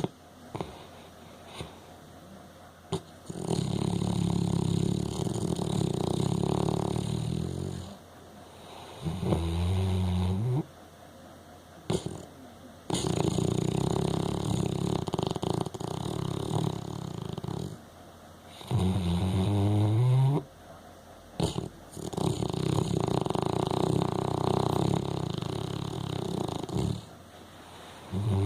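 A sleeping Weimaraner snoring loudly in a slow, repeating rhythm: a long, noisy snore of four to five seconds, then a shorter snore with a wavering pitch, three times over. There are a few short clicks in the pauses between breaths.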